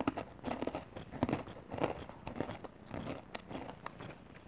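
Crunchy chewing of caramel-coated popcorn, close to a clip-on microphone, with irregular crunches about twice a second.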